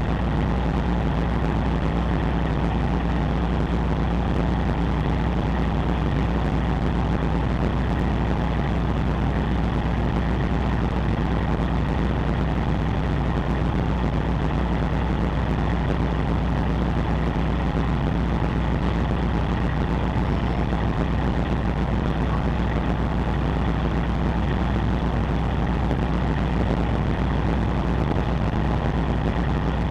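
Ship's diesel machinery running steadily: a constant low engine drone with an even hiss of noise over it, from the ferry and the tugboat pushing against its hull.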